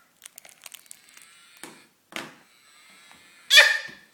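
Soft crinkles and taps of a children's sound book being handled, then a short, loud pitched sound near the end.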